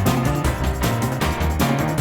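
Background music with a steady driving beat and bass line.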